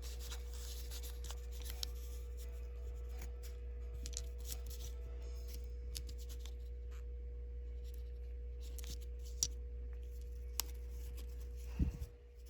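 Packaging and small items being handled and opened by hand: scattered rustles, clicks and scrapes over a steady electrical hum, with a louder knock near the end.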